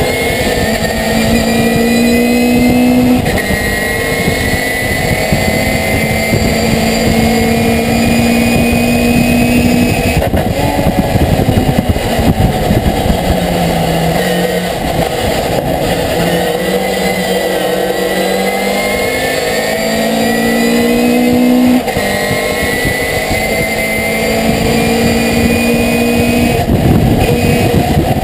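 A racing pickup truck's V8 engine heard from inside the cockpit, pulling hard. Its pitch climbs steadily, then drops sharply at gear changes several times, under heavy wind and road noise.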